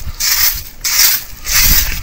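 Rhythmic scraping strokes, about two a second, each a short hissing rasp.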